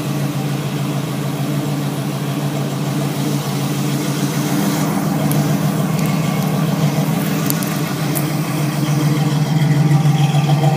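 Oldsmobile Cutlass engine idling steadily and smoothly, without shaking.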